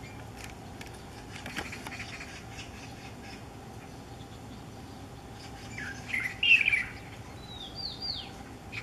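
Chinese (light-vented) bulbul singing: a short phrase about one and a half seconds in, then a louder warbled phrase around six seconds in, followed by three quick high down-slurred whistles near the end.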